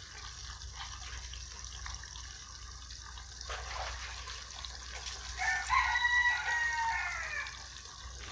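Jackfruit wedges frying in a pan of oil with a soft, steady sizzle. About five seconds in, a rooster crows once: one long call that falls away at the end.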